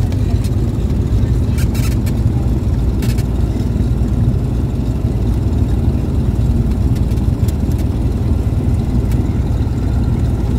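Single-engine light aircraft's engine and propeller running steadily at taxi power, heard from inside the cockpit.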